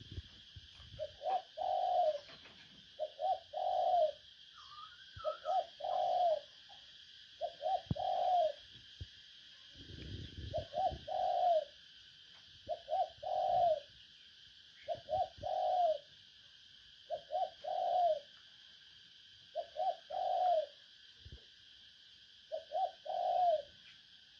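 Spotted dove (cu gáy) cooing over and over, short phrases of two or three coos every couple of seconds: a decoy call used to lure wild doves. A steady high hum runs underneath.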